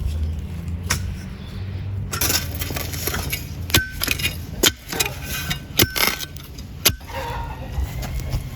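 A run of sharp clinks and knocks over a steady low background hum, the loudest four coming in the middle few seconds, some with a brief metallic ring.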